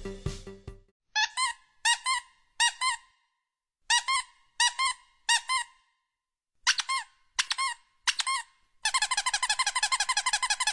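High-pitched squeaks, three sets of three short squeaks, then a fast run of squeaks near the end, after music fades out in the first second.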